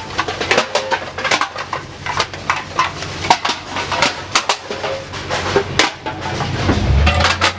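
Empty aluminum cans clattering in a rapid, irregular jumble of sharp knocks as they are dumped out for weighing. About seven seconds in, a steady low engine hum starts.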